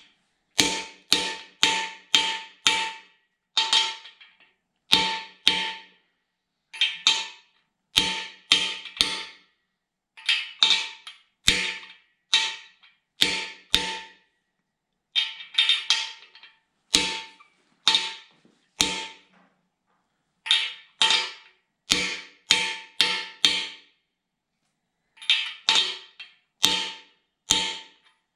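Hammer blows driving frost plugs into the cast-iron side of a Chevrolet 454 big-block engine block, struck through a socket used as a driver. The sharp metallic strikes ring briefly and come in quick runs of two to five blows with short pauses between.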